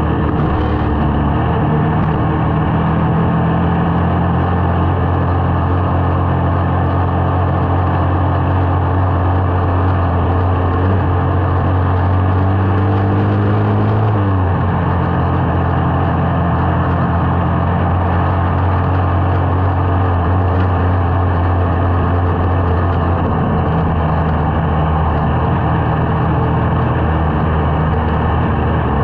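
Small motorcycle engine running at a steady cruising pace, with rushing wind noise from riding. The engine note drops a little about halfway through and picks up again near the end.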